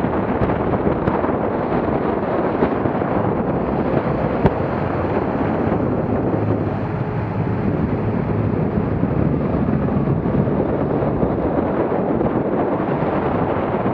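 Strong wind buffeting the microphone, a steady rushing noise, over a small motorboat under way through choppy water.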